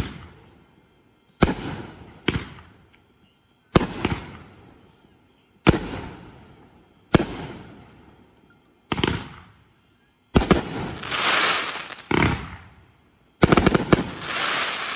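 Pyro Diablo Wild Hawg 500-gram cake firing its shells: sharp aerial bursts one to two seconds apart, each fading away after the bang. About ten seconds in, and again near the end, a burst is followed by about two seconds of dense crackling.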